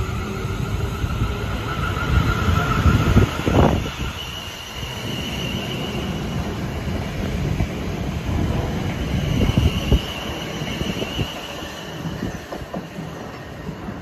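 A South Western Railway passenger train passing through the station, rumbling, with wheels knocking over rail joints in bunches and a high-pitched wheel squeal that comes and goes.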